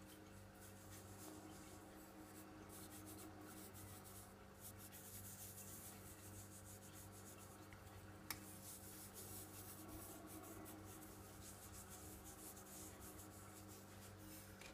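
Faint scratchy rubbing of fingertips working a white abrasive paste over a silver Maple Leaf bullion coin to scrub off milk spots, with a single sharp click about 8 seconds in.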